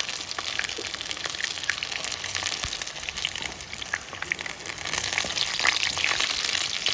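Cornflour-coated chicken pieces frying in hot oil in a kadai: a steady sizzle with many small crackles and pops, a little louder in the second half.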